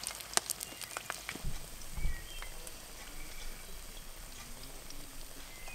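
Food frying in a cast iron skillet over a campfire: a faint steady sizzle with several sharp pops and crackles in the first second and a half, and a low thump about two seconds in.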